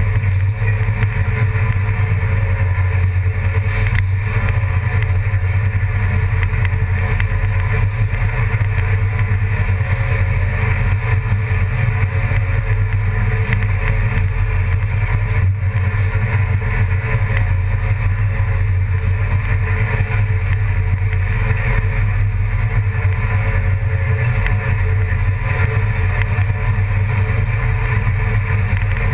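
An engine running at a steady, even speed: a constant low drone that does not rise or fall.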